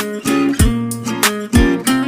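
Background music: a track of pitched notes over a beat, with low thumps about once a second.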